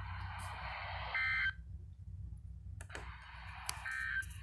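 Emergency Alert System data bursts: two short, buzzy two-tone chirps about three seconds apart, heard over radio hiss and a low hum. The hiss drops out between them. Coming after the warning message, they are the end-of-message signal that closes the alert.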